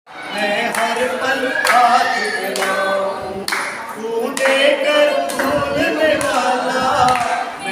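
A group of men and women singing a Hindi devotional bhajan together, with hand claps keeping time.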